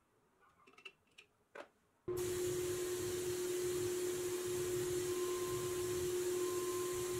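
A few faint taps and rustles as powder is poured into a powder coating gun's cup. Then, about two seconds in, a sudden loud steady hiss of the powder coat gun spraying powder by air, with a steady hum under it.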